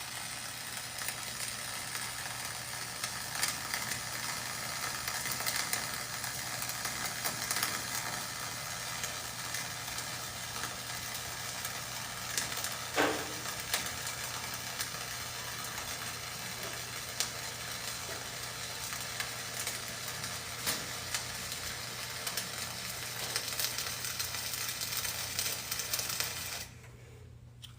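Flux-core arc welding: a steady crackling sizzle with scattered sharp pops while the arc burns, stopping abruptly about a second before the end. A steady low hum continues underneath.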